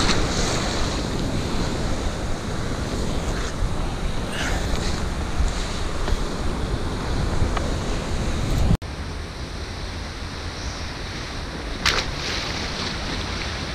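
Wind buffeting the microphone over steady surf washing against a rock jetty. Near the end, a short splash as the thrown hoop net hits the water.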